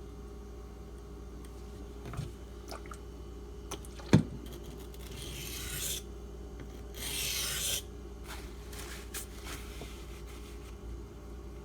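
Water stone being handled on the bench: one sharp knock about four seconds in, then two rough hissing rubs of about a second each, with a few light clicks.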